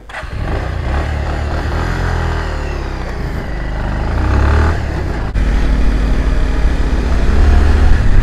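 Motorcycle engine starting and pulling away over gravel, its running rising in level for the first few seconds. About five seconds in the sound cuts to the bike riding along a road, with a heavy low rumble of wind on the microphone.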